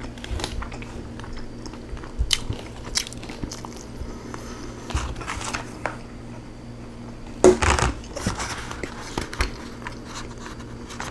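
Close-miked chewing and crunching of the last scraps of rotisserie chicken, with light clicks and crackles from a black plastic takeout tray being handled, and a louder burst about seven and a half seconds in.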